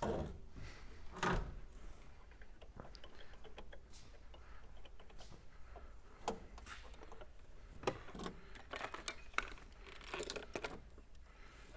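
Scattered light clicks, rattles and knocks of tools and car parts being handled, with a few sharper single knocks about a second in and around six and eight seconds in. No engine is running.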